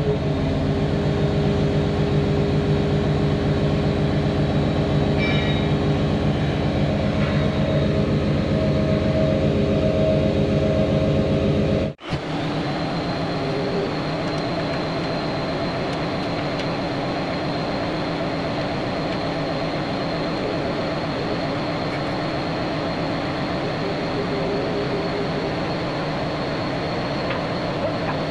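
John Deere crawler dozer's diesel engine running steadily as the ripper hydraulics lift the rear of the machine, at first heard close up from the cab as a deep, even hum. About twelve seconds in the sound cuts out for an instant and comes back duller and more distant, with a thin steady high whine over it.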